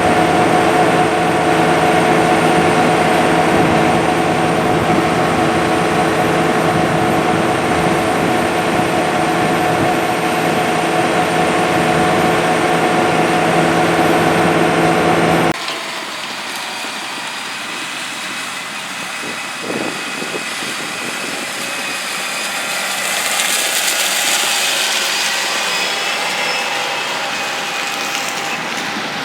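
Large diesel harvest machinery, John Deere combines and grain-cart tractors, running steadily close by with a steady engine drone. About halfway through, the sound cuts abruptly to a quieter, more distant machine hum with a faint high whine.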